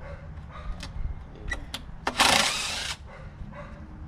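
Power drill fitted with a 1/4-inch bit running in one short burst about two seconds in, driving screws out of a closet AC unit's sheet-metal casing, with a few light clicks and taps around it.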